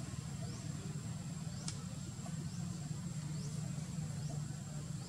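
A steady low engine-like hum, such as an idling motor, with a faint high chirp repeating about once a second and one sharp click a little under two seconds in.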